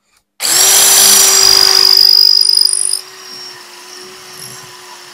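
Cordless drill in non-hammer mode starting about half a second in and grinding its bit through a ceramic wall tile: loud and rough for about two and a half seconds, then quieter and steadier as the bit breaks through the tile, the motor still running.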